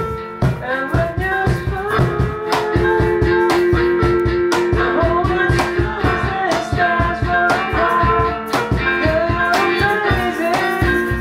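Music: a song with guitar and a steady, regular beat.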